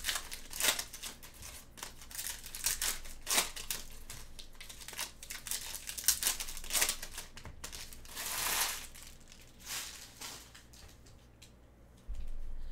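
Trading cards and foil pack wrappers handled in gloved hands: repeated short crinkling and rustling, with one longer crinkle about eight seconds in, dying away near the end.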